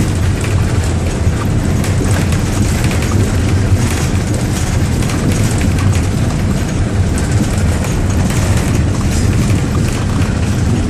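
Steady low rumble of a minibus in motion, heard from inside the cabin: engine and road noise with no change in pace.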